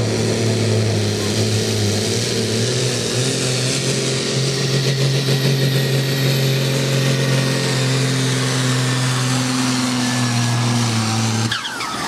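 Fendt pulling tractor's diesel engine running flat out as it hauls the weight sled, a loud steady drone. Near the end the engine note cuts off sharply, followed by a brief falling whine.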